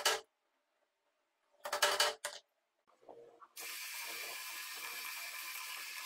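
A few sharp clicks of a centre punch marking a metal strip, then about three and a half seconds in a bench drill press starts abruptly and runs steadily, its bit drilling into the thin metal strip.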